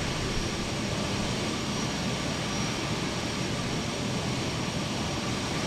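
Boeing C-17 Globemaster III's four turbofan jet engines running steadily: a constant rushing noise with a faint high-pitched whine.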